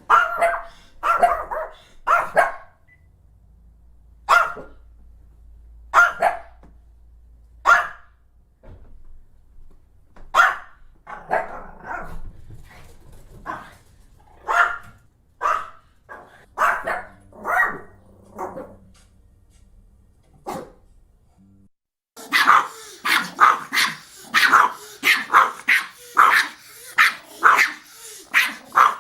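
Pomeranian barking: short, sharp barks, single or in quick clusters with pauses between. About three-quarters of the way through they become a rapid, unbroken run of barks.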